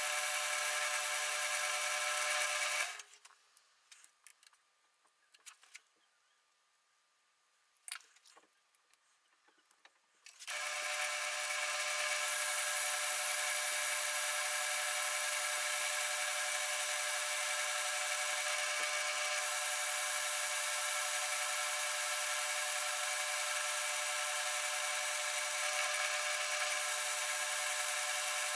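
South Bend lathe running with a steady, multi-pitched whine while turning round stock down. The sound drops away about three seconds in, leaving near quiet with a few light clicks and knocks, and the steady running starts again about ten seconds in.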